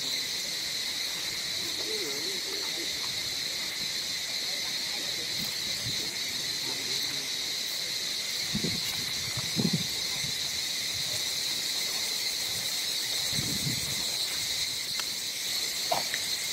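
Steady, shrill drone of insects, high and unbroken, with a few brief low sounds a couple of times in the middle.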